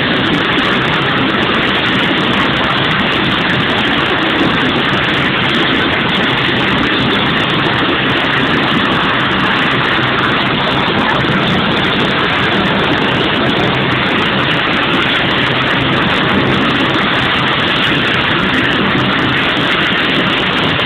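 Helicopter engine and rotor running: a loud, steady rushing drone with no let-up.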